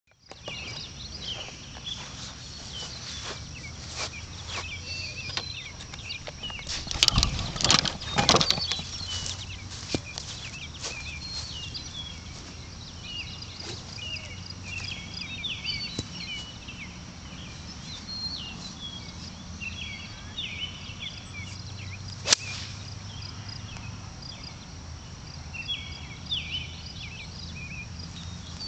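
Outdoor golf-course ambience of many small high chirps from birds or insects over a faint low hum. A quarter of the way in come a few loud knocks and rustles, and about three-quarters of the way in there is one sharp click.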